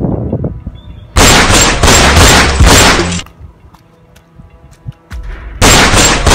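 Two loud bursts of rapid gunfire as an added sound effect: a run of about two seconds starting a second in, then a shorter one near the end.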